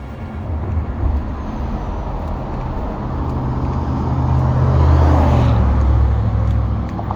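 Highway traffic running past on the bridge beside the walkway: a steady low rumble that swells as a vehicle goes by, loudest about five seconds in, then eases off.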